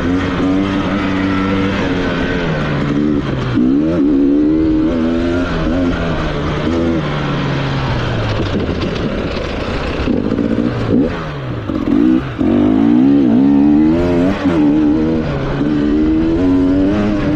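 Enduro dirt bike engine under way on a rough trail, its pitch rising and falling again and again as the throttle is opened and closed. It dips briefly a little past the middle before picking up again.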